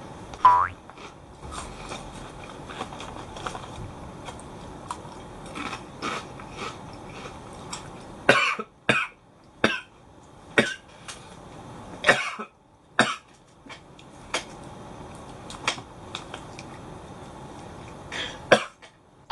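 A man crunching dry prawn crackers, then coughing: a run of about six sharp coughs starting about eight seconds in, and a couple more near the end, as the dry cracker catches in his throat.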